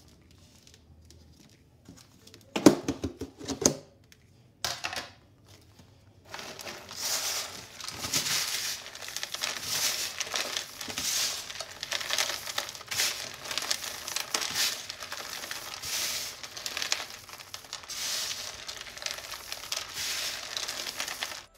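Plastic food container clattering as its snap-on lid is taken off, a few loud knocks about three to five seconds in. Then hands tossing and spreading shredded cheese in the plastic tub, a steady crinkly rustle.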